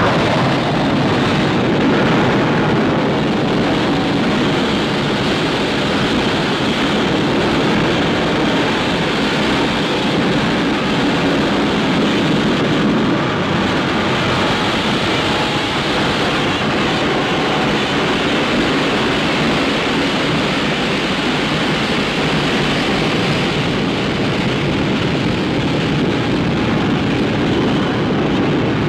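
Loud, steady rushing noise: the sound effect of a nuclear explosion in an animated film.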